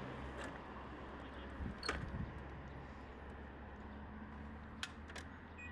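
City street ambience: a steady low hum of traffic with a few sharp clicks, the loudest about two seconds in and a pair near the end.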